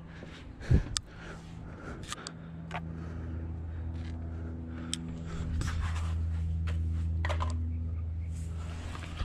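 2008 Ford Mustang GT's 4.6-litre V8 running at idle with a misfire, a steady low hum that grows louder midway, with a thump about a second in and scattered clicks.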